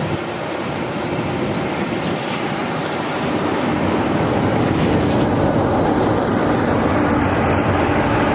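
A steam-hauled passenger train running past, a steady rushing rumble of wheels on rail that grows a little louder about three seconds in.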